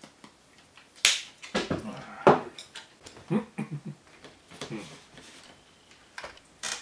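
A few sharp clicks and knocks from a pepper shaker and chopsticks being handled and set down on a desk, the loudest about one and two seconds in and another near the end, with short low vocal sounds in between.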